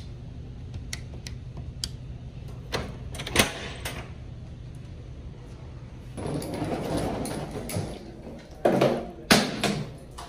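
Push-button keypad door lock: a few sharp clicks as code buttons are pressed, then the clunk of the lock and door handle. A door swings open with rustling handling noise, and two heavier knocks come near the end.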